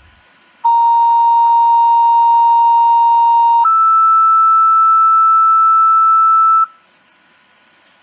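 Two-tone sequential fire dispatch page over a scanner radio, alerting the volunteer fire company to a call: a steady lower tone begins just under a second in and holds about three seconds, then switches straight to a higher steady tone held another three seconds. Faint radio hiss before and after.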